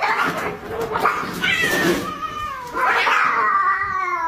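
Domestic cats fighting: three screeching, spitting outbursts about a second and a half apart, then a long drawn-out yowl that slides down in pitch near the end.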